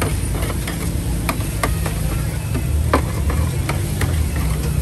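Metal spatula and tongs clinking and scraping against a stainless-steel tray of fried noodles as they are stirred and scooped, in irregular sharp clinks about every half second. A steady low rumble runs underneath.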